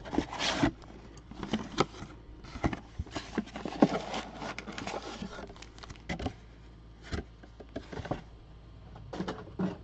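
Cardboard trading-card box opened by hand: its top flaps pulled open and folded back, with irregular rustles, taps and scrapes of cardboard.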